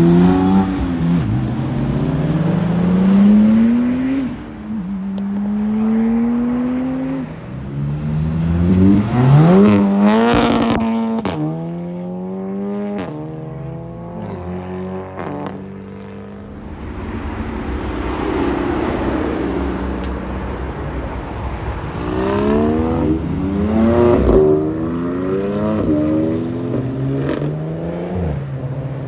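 A string of performance cars accelerating hard away one after another, each engine rising in pitch and dropping back at quick upshifts every second or two. There are a few sharp cracks about ten seconds in.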